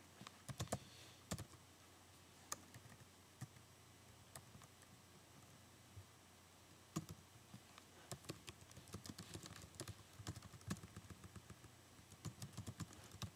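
Faint typing on a computer keyboard: scattered single keystrokes at first, then quicker runs of keys in the second half.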